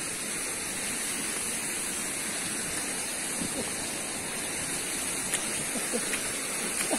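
Steady rush of a shallow stream running over a rock slab at the foot of a small waterfall. A few faint short clicks come near the end.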